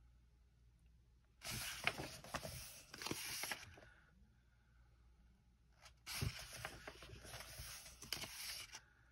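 Paper pages of a paperback coloring book being turned and smoothed flat, twice: two rustles of two to three seconds each with small crinkles, about four seconds apart.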